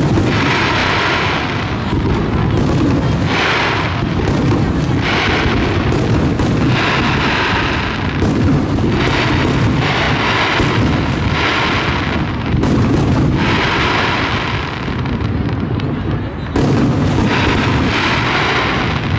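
Aerial firework shells bursting in quick succession during a fireworks display: repeated sharp bangs, several every few seconds, over a continuous low rumble.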